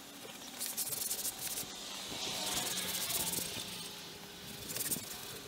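A cloth rubbing with a soft hissing swish in three spells, as oil is worked onto a cast-iron Dutch oven to season it.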